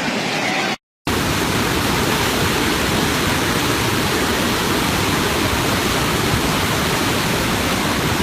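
Swollen floodwater of a river rushing steadily. The sound cuts out for a moment about a second in, then the rush resumes fuller and heavier.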